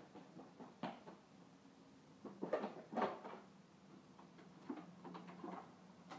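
A few light knocks and clatters from a toddler moving about on a tile floor and handling a plastic toy, loudest in a short burst about two and a half to three seconds in.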